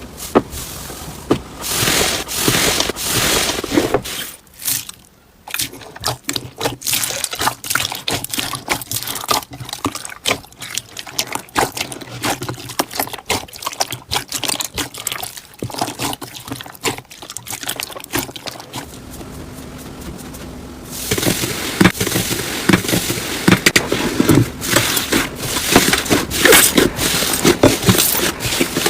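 Slime being squished and stretched by hand: a long run of wet clicks, squelches and small pops, pausing briefly about four seconds in.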